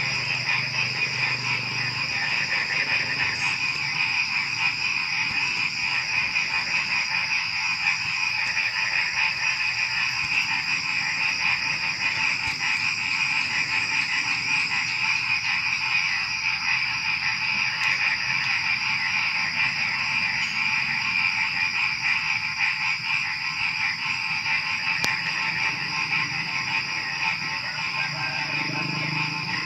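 A dense, unbroken chorus of many frogs croaking together, with crickets chirping in a steady high trill behind them.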